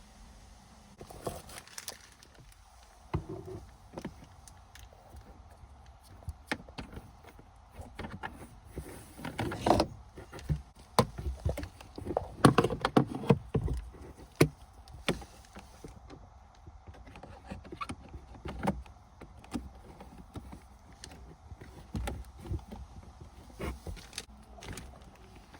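Hands working the plastic parts of a Kia Morning's cabin air filter housing: scattered clicks, knocks and rustling, busiest around the middle.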